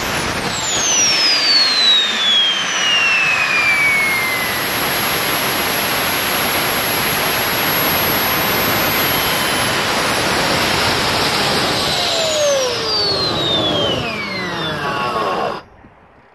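Handmade jet engine running at high power: a loud, steady roar with a high turbine whine. The whine falls in pitch over the first few seconds; near the end several whines fall together as the engine slows, and then the sound stops abruptly.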